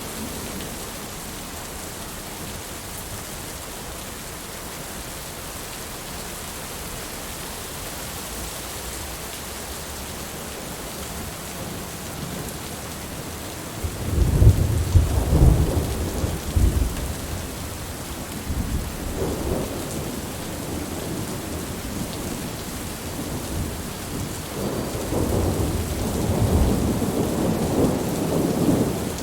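Steady heavy rain hissing, with rumbles of thunder: a sudden loud peal about halfway through, a weaker one a few seconds later, and a longer rolling rumble near the end.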